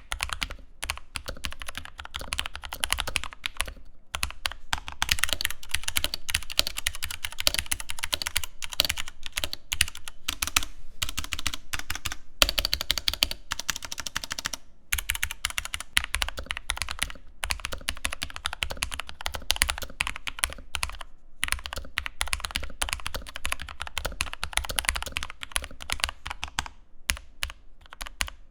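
Fast, continuous typing on an ASUS ROG Falchion mechanical keyboard with Cherry MX Red linear switches: a dense clatter of keystrokes, with short pauses about 4, 15 and 21 seconds in.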